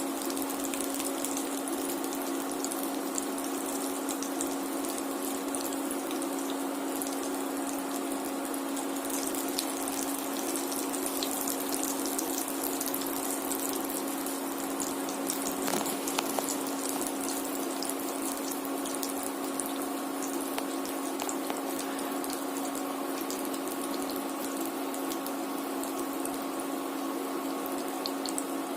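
Soya cutlets deep-frying in hot oil, a steady sizzle with a constant hum underneath and a single click partway through.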